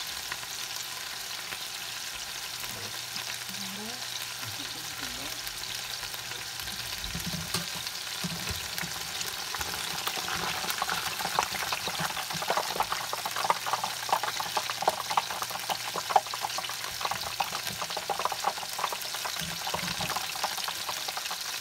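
Ground-pork burger patties sizzling in butter in a skillet: a steady frying hiss, with crackling pops growing denser from about ten seconds in.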